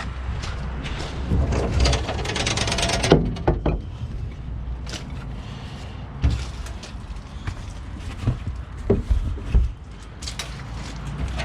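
Heavy diesel truck engine idling with a steady low rumble. Scattered irregular knocks and clunks sound over it, with a short rattling burst of noise a couple of seconds in.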